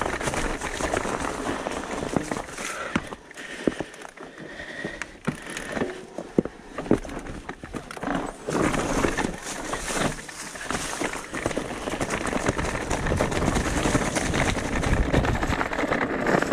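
E-mountain bike rolling over a rough, stony trail: tyres on loose rock with sharp knocks and rattles from the bike. From about halfway the rolling noise becomes denser and steadier.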